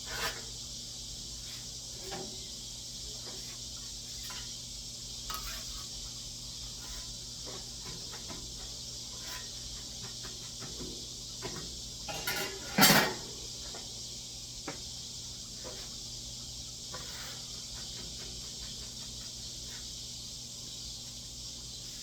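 Steady sizzling hiss of oil, popcorn kernels and sugar heating on a hot flattop griddle, before the popping starts. Scattered light clicks and scrapes, and one louder clatter about 13 seconds in.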